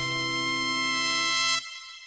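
Music: the song's final held chord, which stops about one and a half seconds in and leaves a short fading tail.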